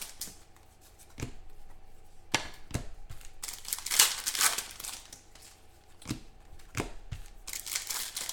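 Football trading-card packs being torn open and their wrappers crinkled, with a few sharp clicks in between.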